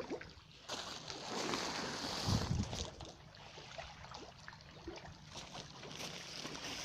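Water splashing and sloshing at a fish pond's surface, with many small scattered clicks and a louder low splash about two and a half seconds in.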